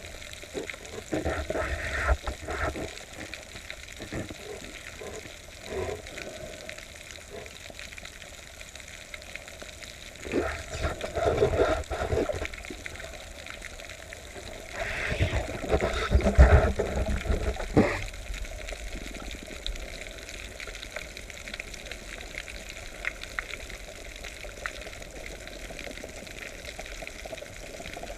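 Water noise heard underwater during a spearfishing free dive: a steady hiss with louder rushing bursts of water, one around ten to twelve seconds in and another from about fifteen to eighteen seconds in.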